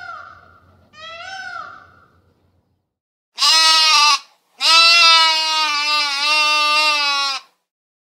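Three short rising-and-falling mewing calls in the first two seconds, then, after a brief silence, a goat bleating twice: a short bleat and then a long, slightly wavering one of about three seconds, much louder than the calls before.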